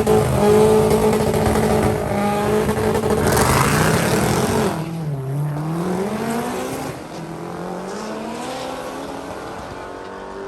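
Car engine running hard at high revs. About five seconds in the revs dip and then climb again, and the sound fades away as the car moves off.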